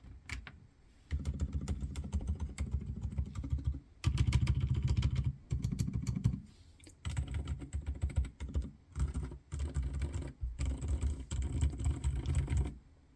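Fast typing on a Redragon K643 mechanical keyboard with Outemu Silent Peach V3 silent linear switches, keystrokes low and thocky from the hollow case. It comes in quick runs with short pauses, the loudest run about four seconds in.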